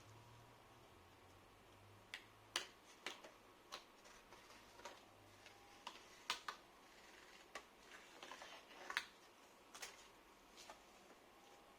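Faint, irregular small clicks and taps from hands handling the parts of an opened iMac as its display is being detached.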